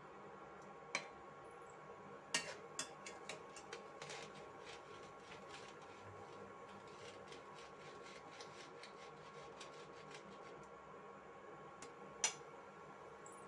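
Milk simmering with chhena balls in an aluminium pan while a metal spatula stirs it: faint ticks and taps come several times a second for several seconds. One sharper knock near the end is the spatula against the pan. All of it sits over a steady faint hum.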